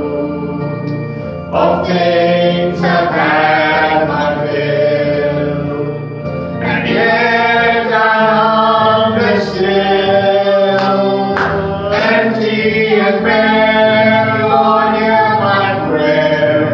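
A man and a boy singing a slow gospel worship song together, over a sustained musical backing.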